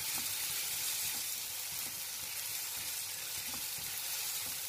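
Chopped onions and tomatoes sizzling steadily in hot oil and butter in a non-stick pan, with a silicone spatula stirring and scraping through them as the tomatoes cook down.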